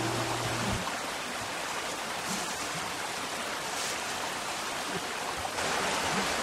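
A stream running steadily over rocks, a continuous rushing water sound that gets a little louder near the end. A sustained musical chord cuts off about a second in.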